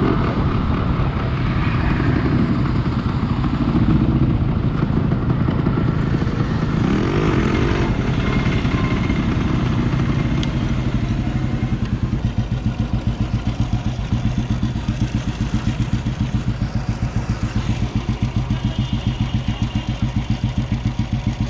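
Yamaha RX100's single-cylinder two-stroke engine running as the motorcycle is ridden; from about halfway the sound settles into an even pulsing beat.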